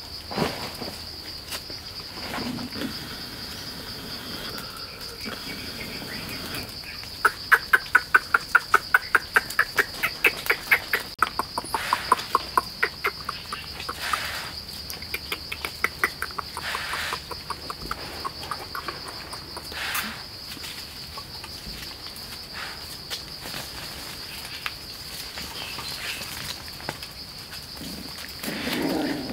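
Forest insects keep up a steady high-pitched drone. About a quarter of the way in comes a quick run of sharp chirps, several a second for about four seconds, the loudest sound here, with a few scattered chirps and knocks afterwards.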